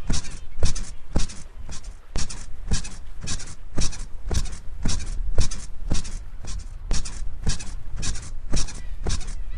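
Bed springs squeaking in a steady rhythm, about two squeaks a second, each with a dull low thump.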